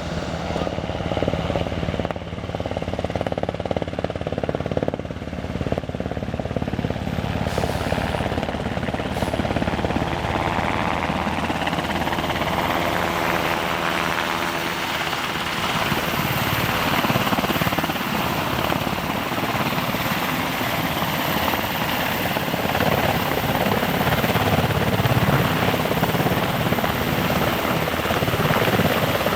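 Military helicopter's turbine engines and rotor running loud and steady, growing somewhat louder in the second half.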